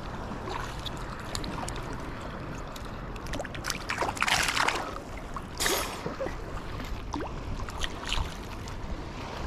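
Choppy reservoir water lapping and sloshing around a wading angler, with louder bursts of splashing about four and six seconds in.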